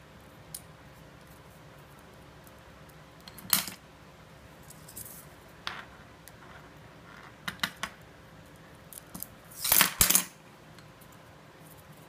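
Steel handcuffs clicking and clinking as a small handcuff key is worked in the lock and the cuffs are opened, in scattered sharp metal clicks, a quick run of three about halfway through, and the loudest cluster of clanks near the end.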